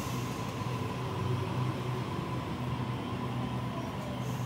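Sydney Trains Waratah electric train standing at the platform, its air conditioning and electrics humming steadily: a low drone with a faint steady whine above it.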